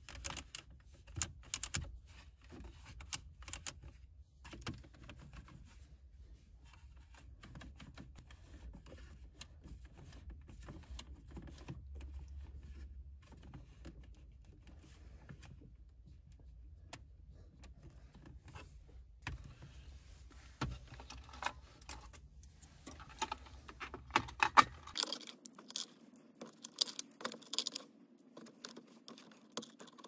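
Plastic clicks and rattles of a Toyota Corolla's manual climate-control knobs, including the broken air-vent direction knob, being turned and pulled by hand, over a low steady hum. The hum cuts off near the end, where keys jangle in a hand.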